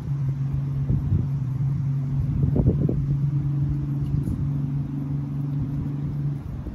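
A steady low engine hum, like a motor vehicle running, with a few short low knocks about a second in and again near the middle.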